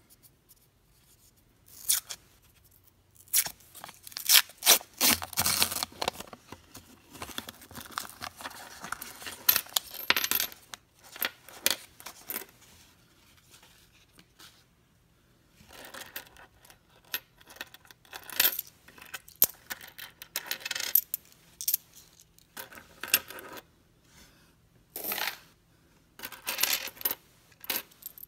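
A paper roll of Lincoln pennies is broken open, and the coins clink and slide against each other and a wooden tabletop as they are spread and sorted by hand. The sound comes in bursts of rapid clinks with short pauses between them.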